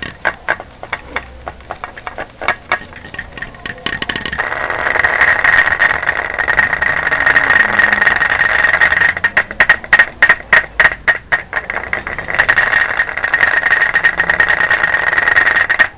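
A machine running with a steady high whine, joined about four seconds in, and bursts of rapid clattering near the start and again past the middle.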